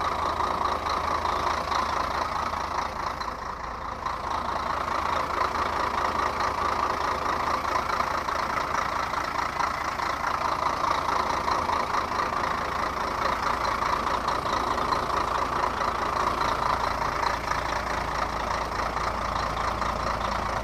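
Scania 113 truck's diesel engine idling steadily, dipping slightly in level about three to four seconds in.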